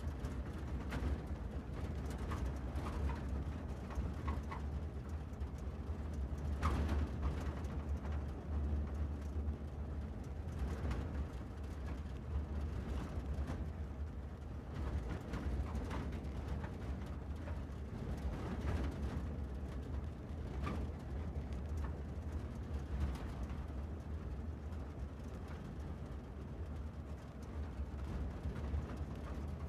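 Steady low rumble of a car driving along a road, with a few faint knocks now and then.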